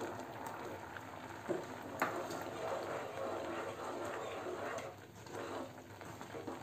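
Thickened milk simmering in a pan while a plastic ladle stirs in jaggery: a faint bubbling and stirring noise, with two light knocks about one and a half and two seconds in.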